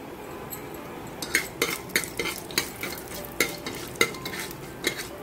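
Fenugreek seeds frying in a spoonful of hot mustard oil in a pressure cooker, sizzling steadily as they start to roast. From about a second in, a spoon stirring them clinks and scrapes against the cooker's metal bottom, a few sharp clicks a second.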